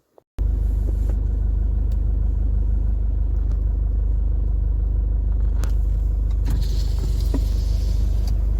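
A car driving: a steady, loud low rumble that starts abruptly just after the start, with a few short knocks through it and a brief hiss late on.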